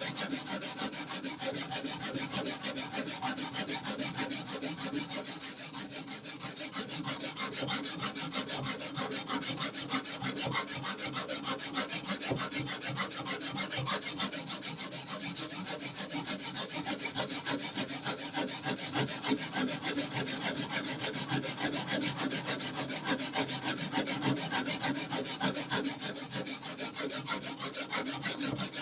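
Sharpening stone rubbing along a knife blade's edge in continuous rapid strokes, a steady gritty scraping.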